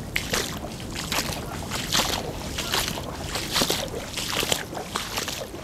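Footsteps wading through deep floodwater in wellington boots, a sloshing splash with each stride, roughly one every 0.8 seconds.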